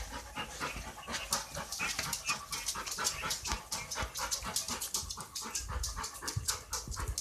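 A dog panting fast and evenly, in a steady run of short breaths; this dog is frightened by nearby fireworks.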